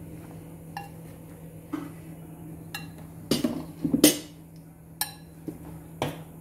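Stainless steel spoon clinking and scraping against a glass mixing bowl while stirring cauliflower florets into dry gram flour, rice flour and spices: irregular knocks about once a second, the loudest about four seconds in.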